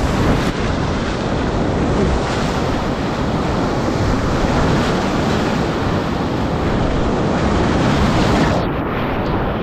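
Class IV whitewater rapids rushing loudly and steadily around a whitewater kayak, heard close up from a helmet-mounted camera as the boat runs through breaking waves. The sound goes briefly muffled near the end.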